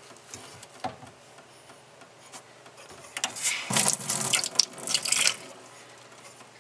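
Water splashing and running for about two seconds, starting about three seconds in, after a few faint knocks.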